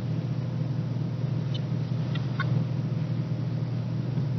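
Steady low rumbling hum with a faint higher tone in it, and a few faint ticks about a second and a half in and just after two seconds.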